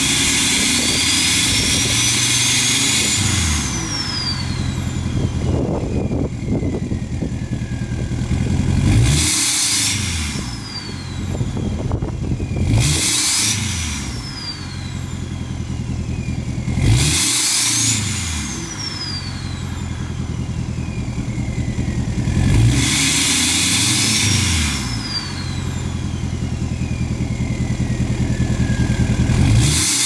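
Straight-piped 2020 L5P Duramax 6.6 L V8 turbo-diesel, tuned and deleted, free-revved about six times while parked. Each blip of the throttle gives a short rise in exhaust note. The turbo whistle then climbs high and slowly winds down between revs.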